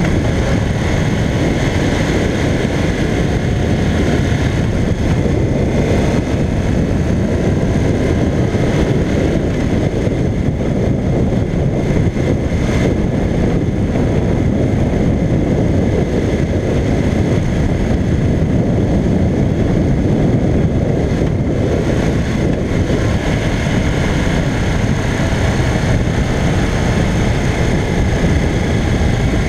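1985 Honda CBX 750P's inline-four engine running steadily at road speed, under wind and road noise on the bike-mounted camera's microphone.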